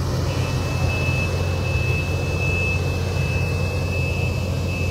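Case CX220 hydraulic excavator's diesel engine running steadily. A thin, steady high-pitched whine comes in shortly after the start.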